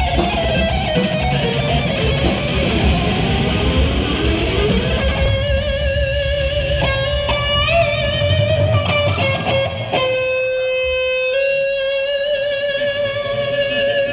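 Live instrumental heavy rock: an electric guitar holding long, wavering notes with vibrato and a bend, over drums, cymbals and bass. The drums and cymbals hit steadily for the first few seconds, then thin out so the held guitar notes stand out. The sound is picked up loud on a phone in the audience.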